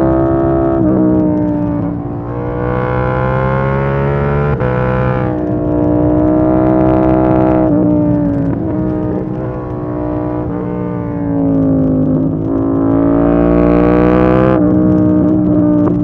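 KTM 890 Duke R's parallel-twin engine running as the bike is ridden at road speed. The note holds fairly steady, easing off and picking up again a few times as the throttle changes, with dips near two seconds in, around nine seconds and around twelve seconds.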